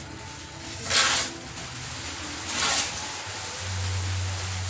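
Plastering trowel working cement mortar onto a wall: short scraping swishes, three of them about a second and a half apart. A steady low hum joins a little over halfway through.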